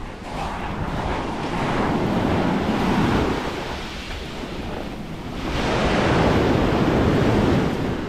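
Sea waves washing onto the shore, the surf swelling and easing twice, with wind buffeting the microphone.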